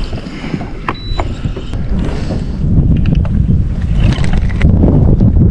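Wind buffeting the microphone: a heavy, irregular low rumble that grows louder about halfway through and drops away at the end, with a few light clicks scattered through it.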